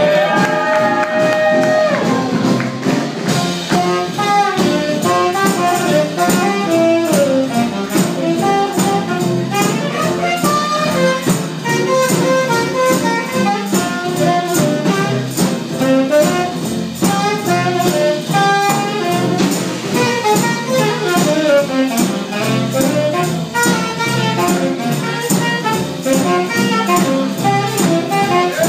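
Small trad jazz band playing live: a saxophone solos over upright bass and guitar, with a tambourine keeping a steady beat.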